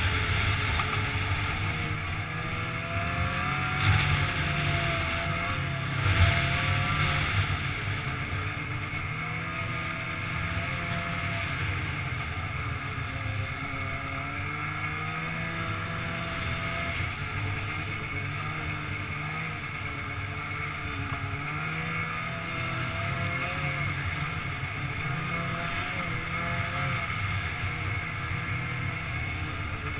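Polaris snowmobile engine running under way along a trail, its pitch wavering up and down with the throttle, with wind on the microphone. Two brief thumps about four and six seconds in.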